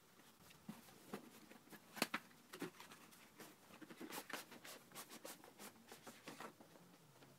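Cardboard packaging of a keyboard box being handled and opened: a run of light scrapes, rustles and taps, the sharpest about two seconds in.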